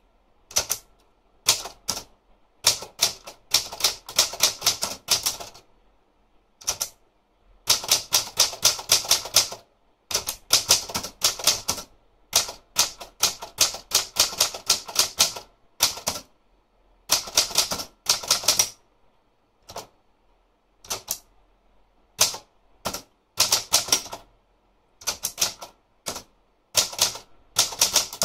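Olympia Traveller de Luxe manual portable typewriter being typed on. Keystrokes clack in quick runs of several a second, broken by short pauses.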